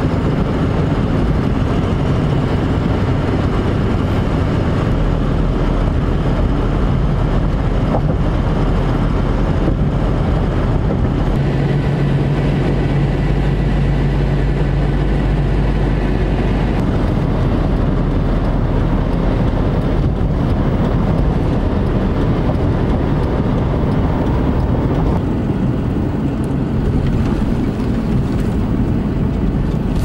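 Steady road and engine noise heard inside a moving vehicle's cabin at highway speed, with a low engine drone standing out for a few seconds around the middle.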